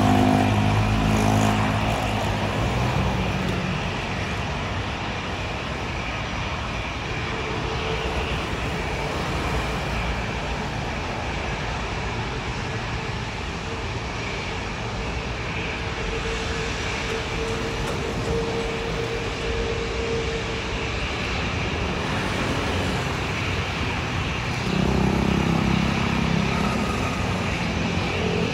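A Boeing 787-9's jet engines running at taxi power as it taxis and lines up on the runway, mixed with nearby road traffic. A faint steady whine runs through the middle, and a low hum swells at the start and again near the end.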